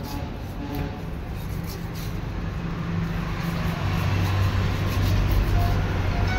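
Steady low rumble of engines and street traffic, growing a little louder about four seconds in, with soft knife cuts through fish on a wooden chopping block beneath it.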